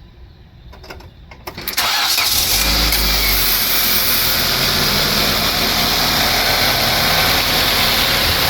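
Nissan 1.8L QG18DE four-cylinder engine cranking briefly and catching about two seconds in, then idling steadily. It runs smoothly without misfire now that its head gasket has been replaced.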